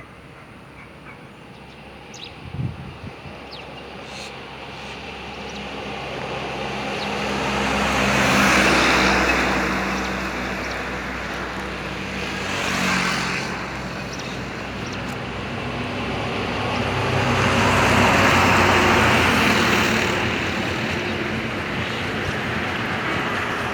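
Road traffic: motor vehicles going past one after another, their engine and tyre noise swelling and fading, loudest about a third of the way in and again near the end.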